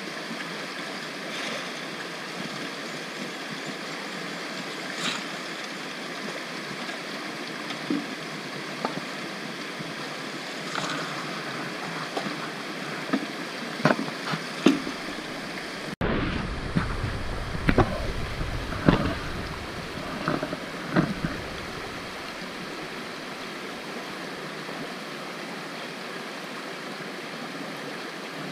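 Shallow rocky creek rushing steadily, with scattered sharp knocks and clatters of stones and gravel through the middle, and a low rumble for a few seconds about halfway.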